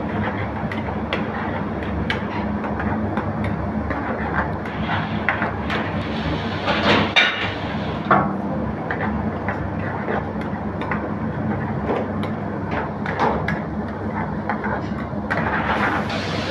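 A metal ladle stirring and repeatedly knocking against a steel frying pan, with the loudest clanks about seven and eight seconds in. Underneath runs the steady rumble of a commercial gas burner.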